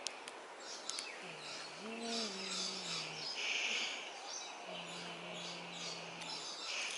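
Birds chirping in a backyard garden, with a faint low hum that bends up and back down once and later holds steady, and a couple of light clicks in the first second.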